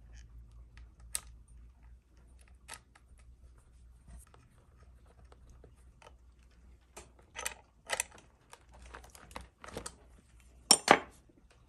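Small metallic clicks and clinks of a steel nut and bolt being fitted to a battery terminal and tightened with a 10 mm combination wrench. Sparse ticks at first, then a busier run of clinks in the second half, the loudest two near the end.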